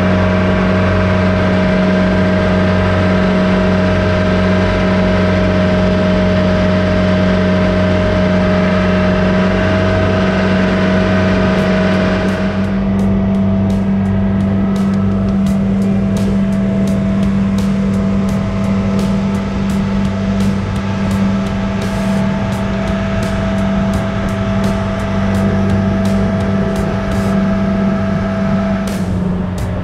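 Motorized outrigger boat's engine running steadily at cruising speed under a hiss of water along the hull. The sound changes abruptly about 12 seconds in, after which sharp clicks are scattered through it.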